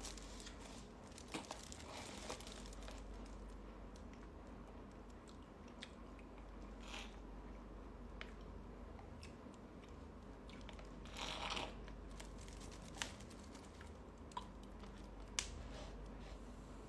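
Faint crinkling of a plastic-wrapped drink being handled while it is sipped through a metal straw, with scattered small clicks and a brief louder rustle about eleven seconds in.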